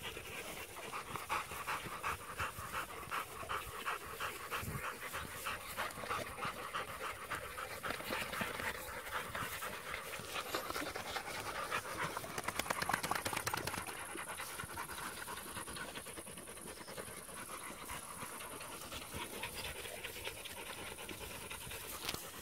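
Rottweiler puppies panting hard in a quick, even rhythm, a little louder for a second or two around the middle.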